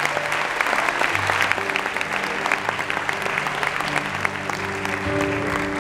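An audience applauding, with held instrumental notes from the band sounding underneath; more sustained notes come in about a second and a half in and grow near the end.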